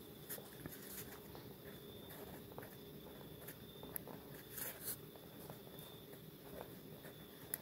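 Pen writing on paper: faint scratching strokes and soft taps of the tip as letters are drawn, with a slightly louder scratch a little under five seconds in.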